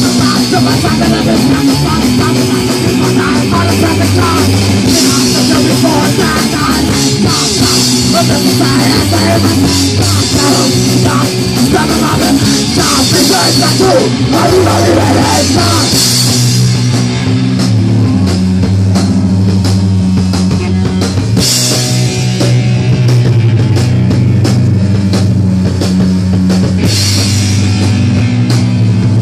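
Punk band playing live and loud: electric bass, electric guitar and a Ludwig drum kit with cymbals crashing.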